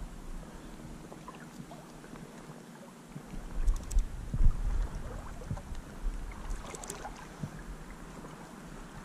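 River water sloshing as an angler wades, with low wind rumble on the microphone that swells to its loudest a few seconds in, and a few faint clicks.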